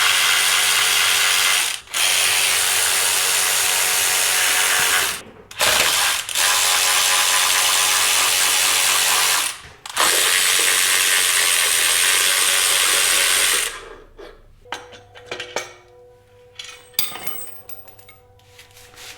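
A power tool running in four spells of a few seconds each, with short pauses between, backing out fasteners while the motorcycle engine is being unbolted. It stops about fourteen seconds in, and light metal clicks and clinks of tools and parts follow.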